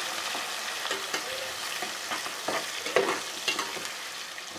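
Chopped onion sizzling as it fries in hot ghee, with a steady hiss. A spoon stirs it now and then, scraping the pot.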